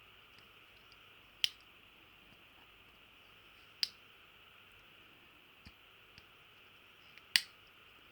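Swiss Army knife tools being opened and closed to work in freshly applied oil, the blades snapping into place on their springs. There are three sharp clicks, about a second and a half in, near four seconds and near the end, with a couple of fainter ticks between.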